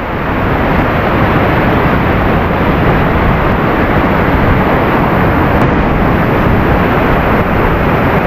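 Loud, steady rush of falling water close to the microphone, an even noise without breaks.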